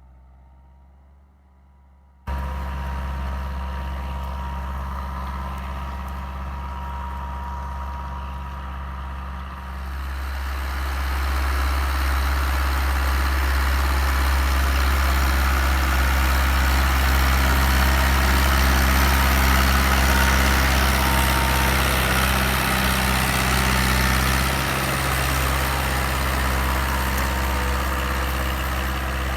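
Massey Ferguson 274S tractor's diesel engine running steadily under load. It cuts in suddenly about two seconds in and grows louder about ten seconds in.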